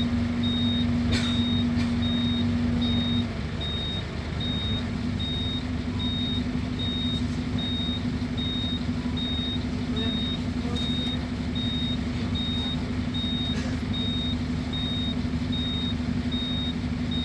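Scania K280UB diesel bus engine running steadily; its hum eases slightly about three seconds in. A thin high electronic beep repeats evenly, about twice a second, throughout.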